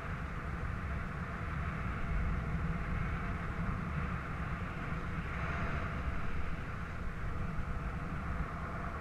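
Steady wind rushing and buffeting over the camera's microphone as a paraglider flies, a low rumble with an even hiss above it.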